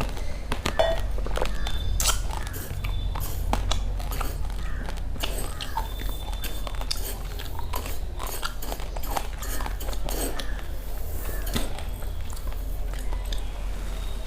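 Close-miked chewing of uncooked rice grains: many short, sharp crunches one after another, over a steady low hum.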